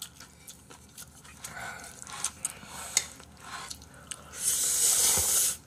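Faint chewing and small clicks of eating jjapagetti black-bean noodles, then a loud, hissing slurp of noodles that starts about four seconds in and lasts just over a second.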